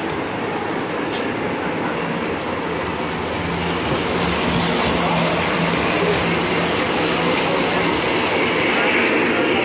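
O-gauge tinplate model train running along metal track, a steady rolling rattle of its wheels that grows louder about four seconds in as it passes close.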